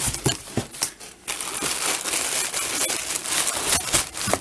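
Packing material crinkling and rustling as it is handled and pulled away, with a few sharp clicks in the first second.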